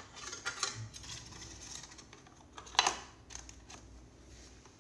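Carbon-fibre exhaust can bracket being slipped over and worked around a carbon-fibre muffler by hand: light scraping and clicking, with one sharper click a little under three seconds in.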